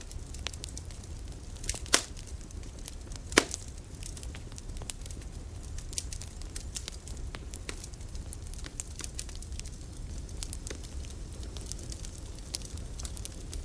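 Wood campfire burning, crackling with many small irregular snaps over a steady low rumble, and two louder pops about two and three and a half seconds in.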